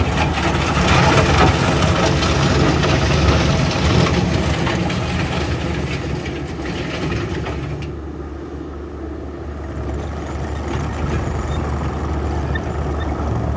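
Diesel engine of a JCB tracked skid steer loader running steadily, with a louder, busier stretch for the first eight seconds or so that eases off about eight seconds in.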